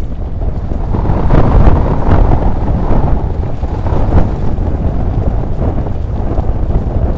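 Wind buffeting the microphone of a mountain bike's ride camera during a fast descent, with the rattle and knock of the bike and tyres over a rough dirt and gravel track. It gets louder about a second in.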